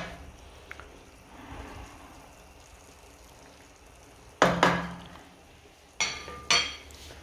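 A frying pan and wooden spatula knocking and clinking on a gas stove's metal grate: a sharp knock at the start, a heavier clunk about four and a half seconds in, then two ringing metallic clinks about half a second apart.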